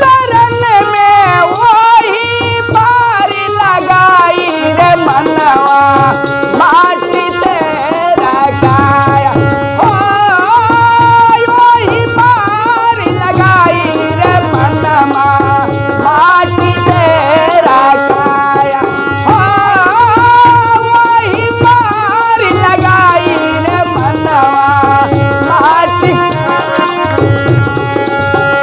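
Instrumental stretch of a Hindi devotional song: a melody line over a steady shaker-like rattle and a regular drum beat.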